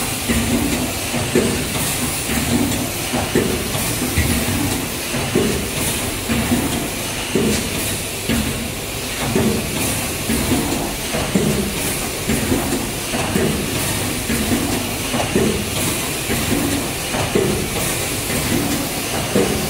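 Automatic horizontal bag-packing machine running, its mechanism knocking regularly about once a second over a steady high hiss.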